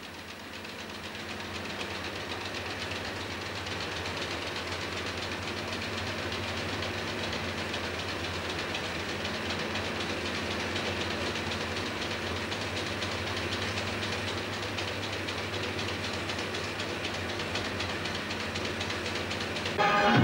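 Optical printer's film-transport mechanism running with a steady, rapid clatter and a low hum, fading in over the first couple of seconds.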